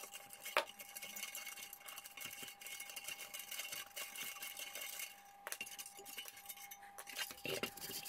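Faint clicks and clinks of small metal parts being handled at an electric heater's connector and element-wire terminals, a sharp click about half a second in and another about five and a half seconds in, over a steady faint tone.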